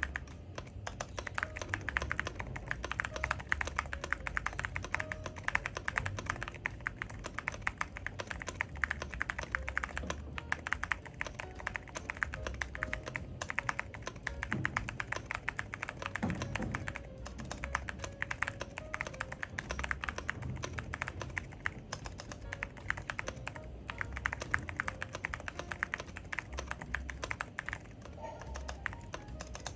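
Continuous fast typing on a Keychron Q7 aluminium mechanical keyboard with lubed Gazzew U4Tx tactile switches and a tape-modded PCB, a dense patter of key strokes with occasional brief lulls.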